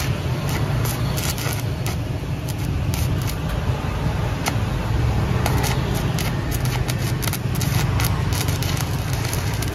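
Stick-welding arc from a Classic ZX7-200CL inverter welder burning a covered electrode on steel: a steady crackling sizzle with frequent sharp pops over a low hum.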